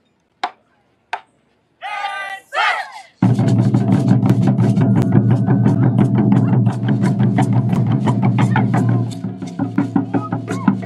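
A taiko ensemble counting in with two sharp clicks and two shouted calls, then coming in together about three seconds in on the chu-daiko drums: loud, fast, booming strikes that run on with only a slight easing near the end.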